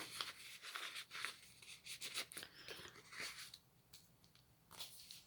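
Faint rustling and light taps of paper and card as the pages, tags and envelope of a handmade journal are handled, in short scattered bits.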